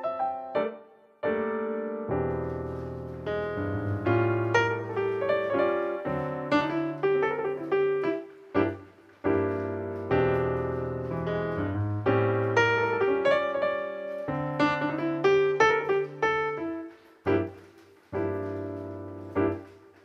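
Background piano music: a gentle melody of struck notes over low bass notes, pausing briefly a few times between phrases.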